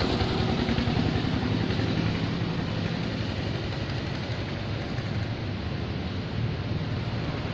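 A running engine: a steady low rumble with hiss, slowly getting quieter.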